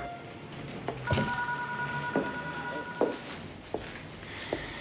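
Footsteps crossing a room, about five steps under a second apart. Over the first steps, a steady two-note electronic tone is held for about two seconds.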